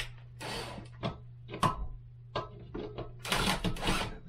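Toilet seat mounting hardware being handled and tightened: irregular plastic clicks and knocks, a short rasp about half a second in, and a busy stretch of scraping and rattling near the end, over a steady low hum.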